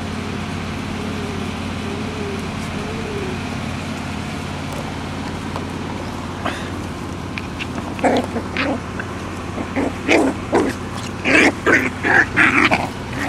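Puppies play-fighting, with a rapid run of short, loud yips and barks starting about eight seconds in. Faint whimpering sounds come earlier, over a steady low hum.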